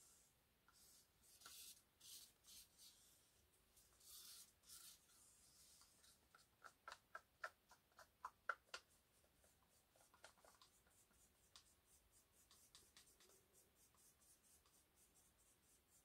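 Faint scraping of a stir stick inside a paint cup, scraping the last of the paint out, with a run of sharp clicks at about four a second about halfway through as the stick knocks against the cup.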